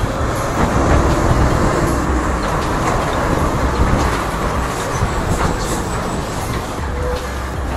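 Rear-loading garbage truck on the move, heard from its rear step: the engine runs with a low rumble under steady road noise, and the truck's body rattles with scattered small clicks.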